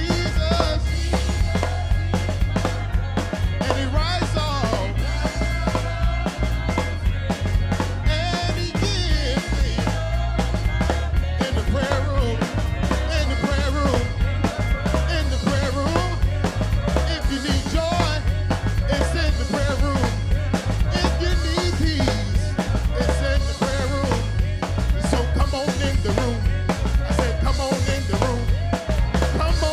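Live gospel worship music: a band with drum kit, heavy bass and keys plays steadily, with singing over it.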